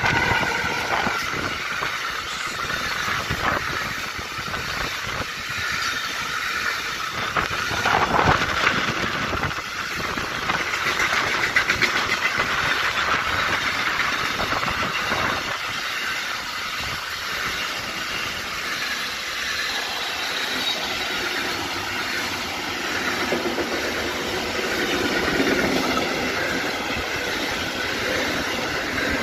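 Intermodal freight train passing close by: the Siemens Vectron electric locomotive goes by at the start, then a long string of container and swap-body wagons. Steady noise of wheels running on the rails, with a continual run of clicks.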